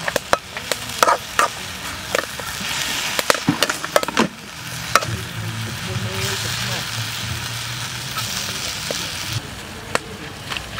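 Metal ladle scraping and clanking against a steel wok as vegetables are stir-fried, over a steady sizzle of hot oil. The clanks and scrapes come thick in the first half, then the sizzle carries on smoothly.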